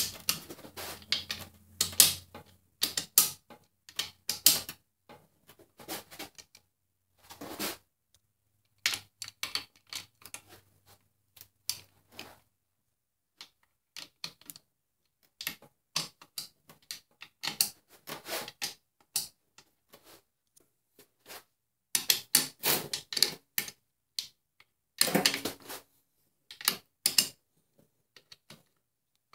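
Hand ratchet on a long extension clicking in short runs of strokes with pauses between, as bolts on an aluminium transmission case are run down and tightened by hand.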